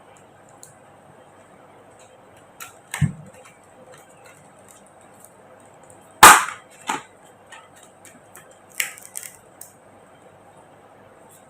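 A few sharp knocks and light clicks from a laptop being handled and set down. There is a dull thump about three seconds in, the loudest sharp knock about six seconds in with a softer one just after, and a quick run of light clicks near nine seconds.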